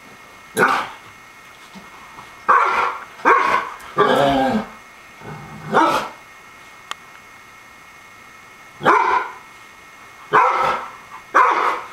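Dogs barking at each other in rough play: about eight short, sharp barks at uneven intervals, with a lull of about three seconds in the middle.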